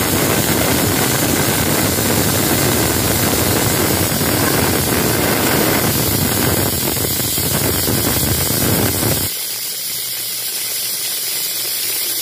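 Aluminium pressure cooker whistling: steam jets out past the lifted weight valve in a loud hiss that cuts off suddenly about nine seconds in, leaving a softer high hiss. It is one of the counted whistles that mark how long the contents have cooked under full pressure.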